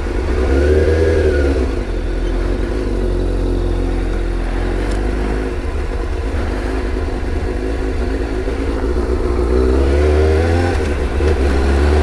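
Suzuki motorcycle engine running while riding, heard over a steady low drone. Its pitch rises twice as it accelerates, about a second in and again near the end.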